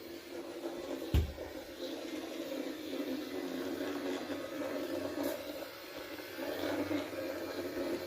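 Robot vacuum cleaner running with a steady whirring hum, with one dull thump about a second in.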